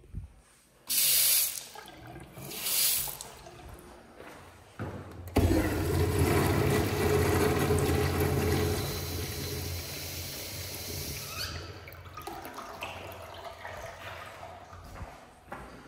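Porcelain sink tap running in two short spurts of water into the basin, then, about five seconds in, a flush starts with a sudden loud rush of water that lasts about six seconds before tapering off.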